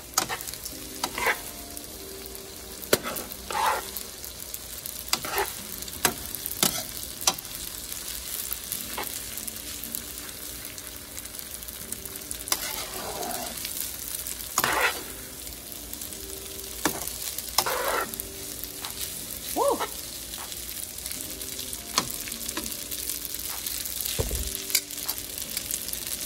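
Garlic noodles sizzling in a hot pan while being stirred and tossed, with a utensil scraping and knocking against the pan at irregular intervals.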